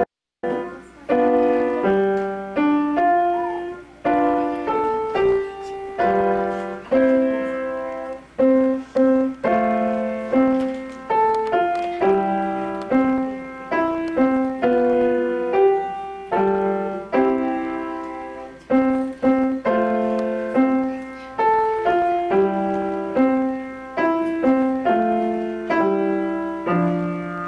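Upright piano played solo: a steady run of struck notes and chords, each one fading before the next.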